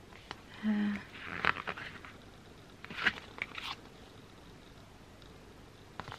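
Stiff pages of a sticker book being turned and handled, giving a few short papery swishes and rustles about a second and a half in, around three seconds in and near the end. A brief low hum comes just before the first page turn.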